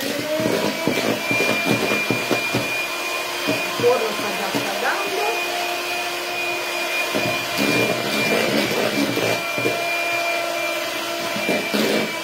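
Handheld electric mixer running steadily, its beaters whipping egg whites into meringue: a steady motor whine with frequent short knocks.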